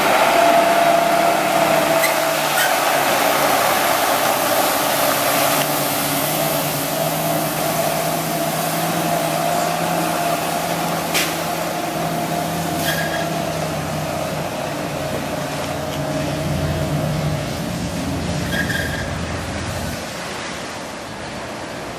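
Water hissing hard from the spray heads of a water truck over its running International DT466 MaxxForce diesel engine, with a steady whine; the sound slowly fades as the truck drives away. A few short clicks are heard in the middle.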